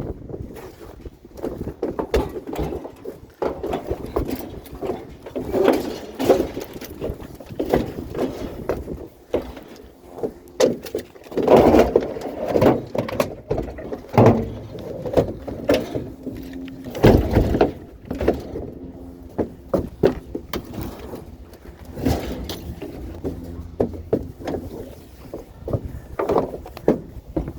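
Scrap being handled and loaded, with irregular clanks, knocks and rattles, the loudest about 12 and 17 seconds in, over a low steady hum.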